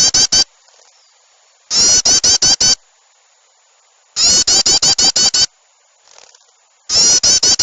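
Looped bird-lure recording of a harsh, rapid chattering bird call. It comes in loud bursts of about a second, each of half a dozen quick falling notes, and the identical burst repeats roughly every two and a half seconds.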